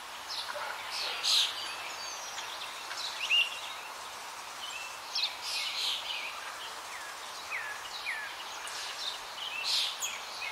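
Several small songbirds chirping and calling, with quick falling whistles among the chirps, over a steady outdoor hiss.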